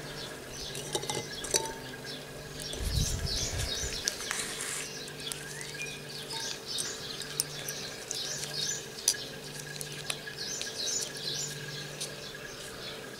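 Light clicks and taps of dyed hard-boiled eggs being handled over a ceramic bowl of dye, with a dull bump about three seconds in. Small birds chirp over and over in the background, over a steady low hum.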